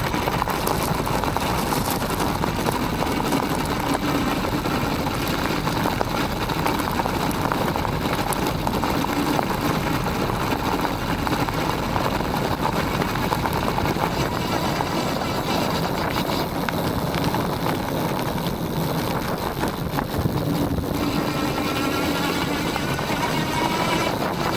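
Aniioke A8 Pro Max dual-motor e-bike ridden on a gravel road: a steady rumble of tyres on gravel with a faint whine, wavering near the end. No clunk from the controller is heard, now that it is padded with foam.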